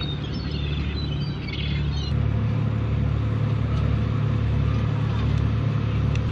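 A fishing boat's engine running with a steady low hum that grows louder about two seconds in, with faint high chirps in the first two seconds.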